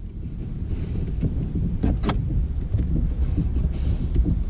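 Cable being pulled through a car's body, rubbing and scraping against the panels, with a sharp click about two seconds in.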